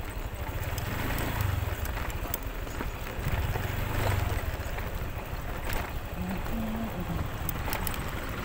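Motorcycle engine running at low speed as it rolls slowly over a gravel road, a steady low hum with scattered sharp clicks from the loose stones.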